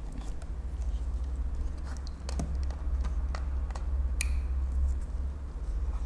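RJ45 plugs clicking into the jacks of a handheld network cable tester as it is handled: a few sharp plastic clicks, the loudest about four seconds in, over a steady low hum.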